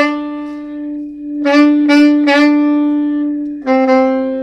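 Saxophone playing long held low notes, the same note re-attacked three times in quick succession in the middle, then a slightly lower held note starting near the end.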